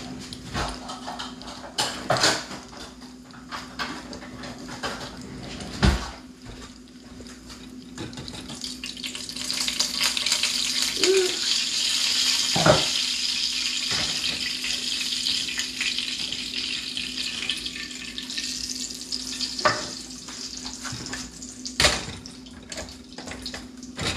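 Water running from a kitchen tap, strongest for about ten seconds in the middle, with scattered knocks and clatters of pots and utensils.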